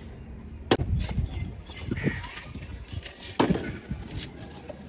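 Small plastic water bottle flipped and landing on a wooden table: a sharp knock about three-quarters of a second in and another about three and a half seconds in, with lighter knocks between.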